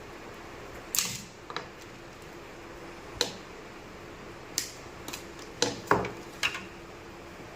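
Scattered sharp clicks and light knocks of small metal parts and hand tools being handled, about seven in all and the loudest around a second in and near six seconds in, over a steady faint hum.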